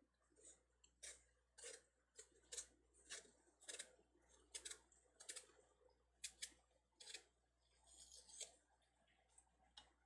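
Kitchen knife paring the rind off a yellow Korean melon (chamoe): a faint series of short scraping cuts, about two a second.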